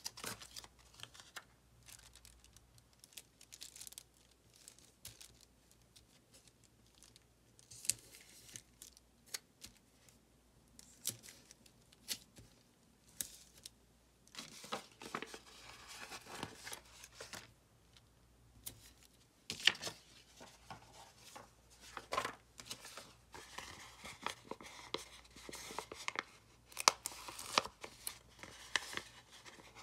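Paper stickers being peeled off their backing sheets and pressed onto a planner page, with rustling of paper and the clear plastic sheet beneath. Irregular soft rustles and crackles, with a few sharper ticks.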